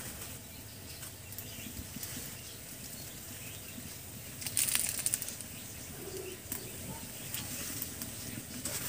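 Dry sticks and leaves rustling and crackling as fuel is pushed into the wood fire of a clay mud stove, with a short burst of rapid crackling about five seconds in.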